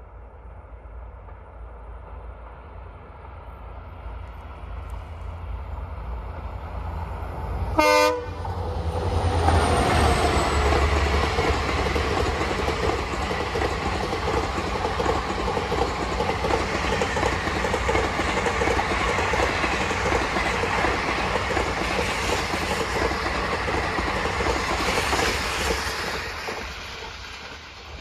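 Passenger train approaching and passing close on Indian Railways track: the noise grows, the train sounds one short horn blast about eight seconds in, then its run-by is loud and steady with a low rumble and wheels on rails, fading away near the end.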